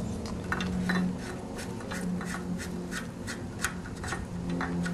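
A 17 mm wrench clicking and scraping on a metal injector line nut as the fitting is loosened to bleed air from the fuel lines. Irregular sharp clicks, with a steady low hum underneath.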